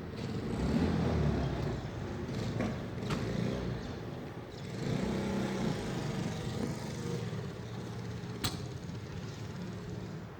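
Outdoor background noise with a steady low engine rumble, and a single sharp knock about eight and a half seconds in.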